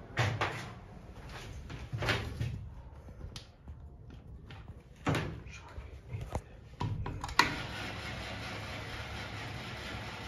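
Knocks and clunks from the doors and fittings of a historic Schumacher elevator, ending in a sharp clack about seven seconds in, after which a steady rushing noise sets in.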